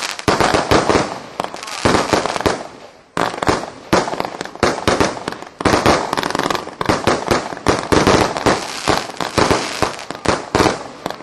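Fireworks going off: many sharp bangs in quick, irregular succession, with crackling between them.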